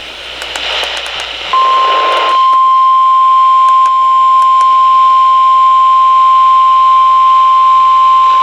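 NOAA Weather Radio 1050 Hz warning alarm tone: one steady, unbroken beep that starts about a second and a half in and holds, marking the start of a warning broadcast. Radio static hiss with a few crackles comes before it and fades out under the tone.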